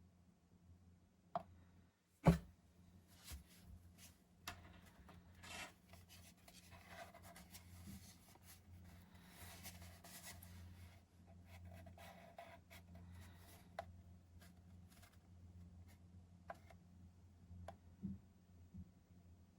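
Faint rubbing and scattered small clicks, one sharper click about two seconds in, over a low steady hum.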